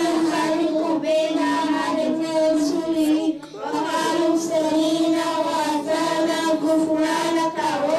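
Several young girls singing together into handheld microphones, in long held notes with a short break about three and a half seconds in.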